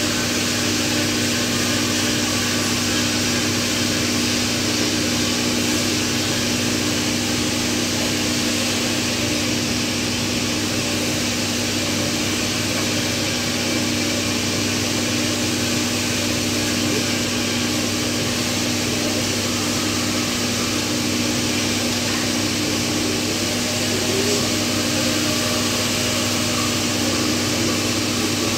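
Steady machine hum with a constant hiss, holding the same pitch and level throughout.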